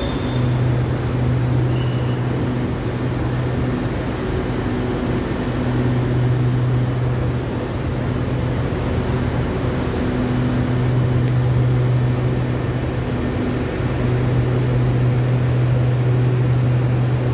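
SRT Red Line electric train standing at the platform with its doors open, its onboard equipment giving a steady low hum over a constant wash of noise.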